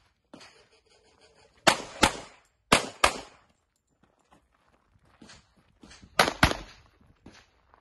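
Handgun fired in three quick double taps, six shots in all: two pairs close together about two seconds in, then a third pair about six seconds in.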